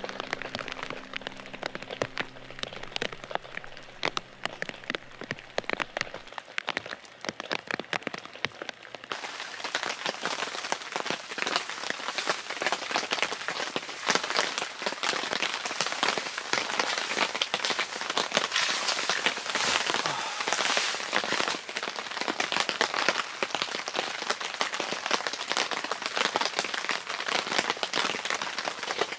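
Steady rain falling on a tent and on wet gravel and puddles, a dense patter of countless drops. It is lighter at first and turns denser and louder about nine seconds in.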